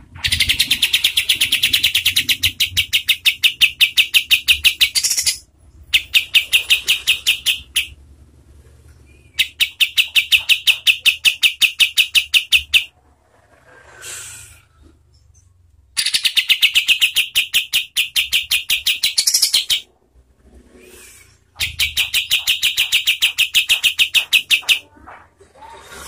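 Kapas tembak bulbul giving its rapid 'tembakan' (shooting) call: five long bursts of fast, evenly repeated sharp notes, roughly ten a second, each lasting two to five seconds, with short pauses between.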